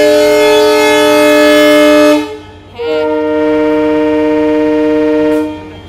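Locomotive air horn sounding two long blasts, each holding several notes at once, with a short break between them; another blast begins right at the end.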